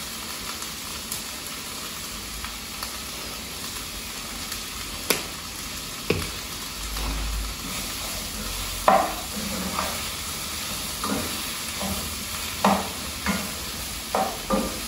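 Onions and bell peppers sizzling steadily as they fry in oil in a frying pan. A utensil scrapes and clacks against the pan as they are stirred, more often in the second half.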